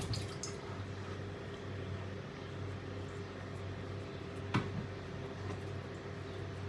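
Steady low mechanical hum in a small room, with one short sharp click about four and a half seconds in.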